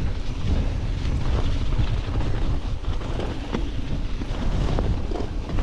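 Steady low wind rumble buffeting an action camera's microphone on a mountain bike riding a rough trail, with scattered short knocks and rattles from the bike over the ground.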